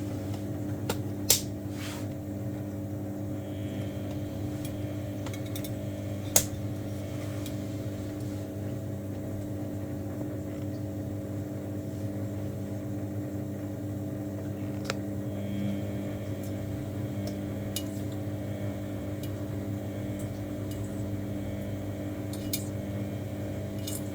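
Washing machine running with a steady hum, with two sharp clicks about a second in and about six seconds in, and a few fainter ticks later.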